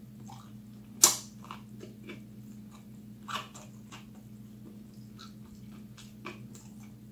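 A person chewing a bite of chicken wing in hot sauce, with wet mouth clicks and smacks. A sharp smack about a second in is the loudest, over a faint steady low hum.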